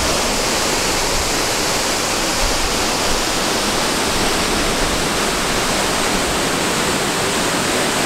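Steady, even rush of a large waterfall, Burney Falls, with no separate footsteps or voices standing out; it cuts in abruptly at the start.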